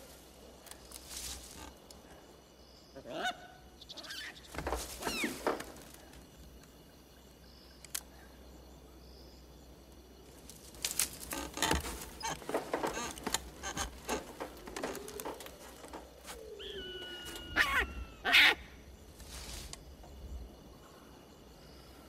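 Scattered animal cries over a quiet background. The loudest is a honking call with several pitches, gliding downward, about four-fifths of the way through.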